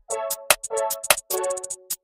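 Electronic background music with a fast, choppy beat of short hits between held chords.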